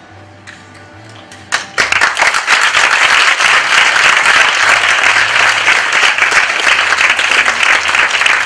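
Audience applause breaks out suddenly about two seconds in and continues as dense, loud clapping over quiet music.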